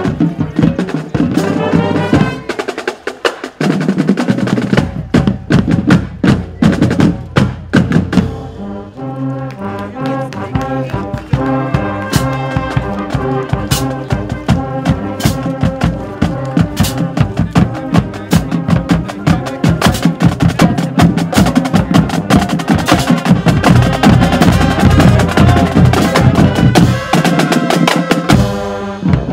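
Marching band playing on the move: snare, tenor and bass drums carry the first several seconds, then from about eight seconds in trombones and sousaphones play a sustained melody over the drumline.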